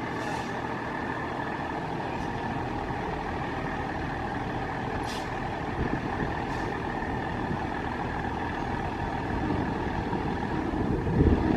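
Fire truck's diesel engine running steadily, with two short hisses about five and six and a half seconds in and a louder surge of engine rumble near the end.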